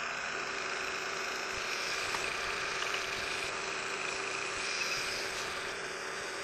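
Milling machine spindle motor running steadily with a drill chuck fitted, a continuous hum and whine.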